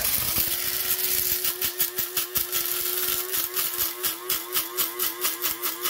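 Bodum electric blade coffee grinder running as it grinds roasted coffee beans. The motor hum starts at once and holds steady. About one and a half seconds in, a pulsing of roughly three to four beats a second sets in.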